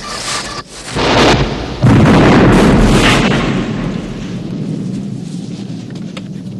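A helicopter blows up in a grenade explosion, a film sound effect. A steady engine whine stops under a second in. A loud blast follows about a second in, then a bigger one just after, fading out over a couple of seconds.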